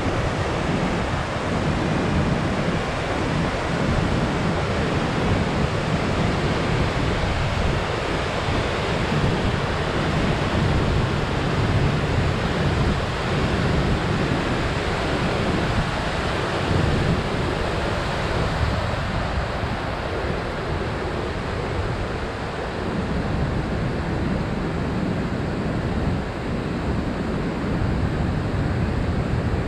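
Steady rush of a mountain creek cascading over rocks in a narrow canyon, with wind rumbling on the microphone. The higher hiss thins a little past halfway.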